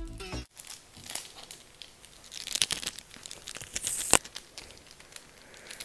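Crinkling and crackling from something handled by fingers right at the microphone, with scattered sharp ticks and one loud click about four seconds in.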